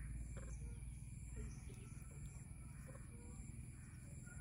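Faint outdoor ambience: a steady low rumble under a few short, soft bird calls, with a faint high insect chirp repeating about once a second.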